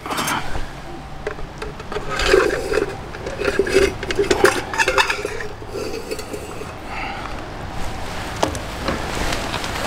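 Thin tin-can metal scraping and clinking: a knife blade and pliers working against a blackened tin-can oven and its tin tray as a baked bread roll is slid out. The scrapes are irregular, busiest in the middle, with a sharp click near the end.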